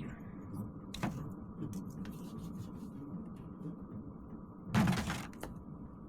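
Handling noises from hands-on work, with scattered light clicks and a knock about a second in, then a louder scrape or rustle lasting about half a second near the end. A steady low hum runs underneath.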